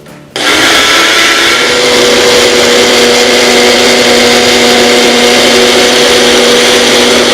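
Blender switched on about half a second in and running steadily at high speed, blending frozen banana, strawberries and spinach, with a steady motor hum under loud noise.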